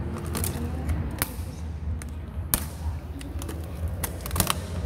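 Laptop being broken underfoot by sneakers: a few sharp cracks and snaps of its plastic case, the loudest about two and a half seconds in.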